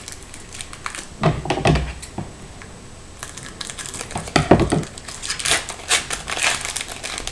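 Foil trading-card pack being cut open with scissors and its wrapper crinkled as it is pulled apart, with a couple of louder knocks of handling, about one and a half and four and a half seconds in.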